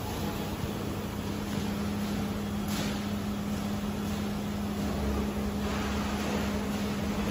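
Steady hum of factory machinery: one constant low drone over a noisy background, with low rumble growing stronger toward the end and a brief hiss about three seconds in.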